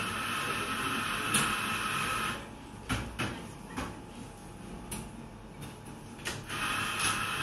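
Café background: a steady mechanical whirring hiss from a café machine stops about two and a half seconds in. A few sharp knocks and clinks follow, and the whirring starts again near the end.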